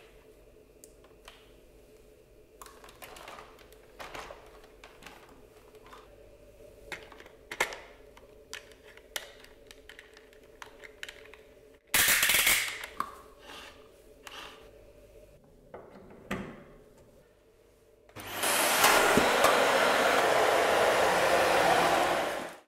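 Clicks and knocks of plastic parts being turned and snapped together on a Dyson ball upright vacuum, with a brief loud rasp about halfway through. For the last four seconds or so the vacuum's motor runs with a loud, steady rush of air, cut off abruptly at the end.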